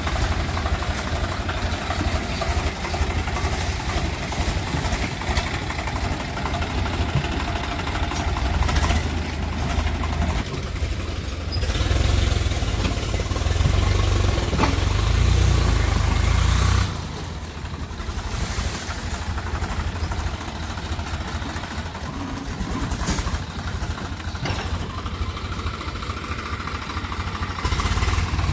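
Heavy diesel machinery engines running with a steady low rumble. The rumble grows louder for a few seconds around the middle, then drops off sharply and settles back to a lower steady run.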